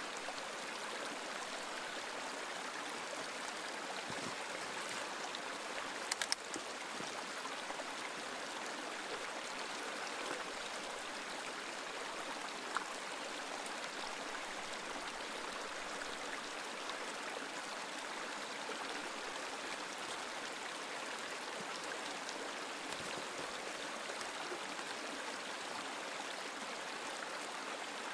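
Steady rush of running water from a mountain stream, with a few sharp clicks about six seconds in and another near the middle.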